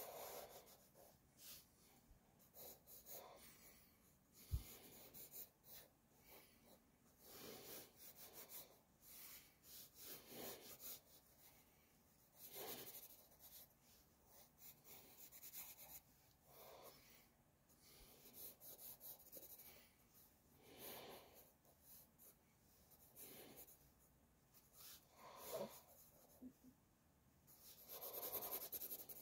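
Faint pencil scratching on sketchbook paper: runs of quick hatching strokes with short pauses between them, and one sharp tap about four and a half seconds in.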